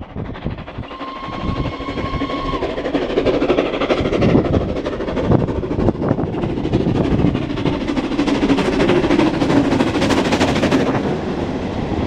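Steam locomotive No. 461 approaching with a passenger train, its exhaust beating rapidly and growing steadily louder, with a brief whistle about a second in. Near the end the engine passes and the carriages rumble by on the rails.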